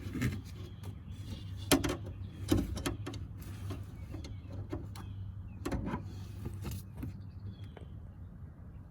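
Scattered metal clicks and knocks from working at a Mercedes-Benz W211 hood latch lever that is seized and won't budge, over a steady low hum.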